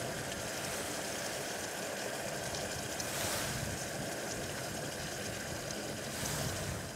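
Steady rushing noise with a low rumble underneath, running evenly and swelling slightly twice, like a running machine.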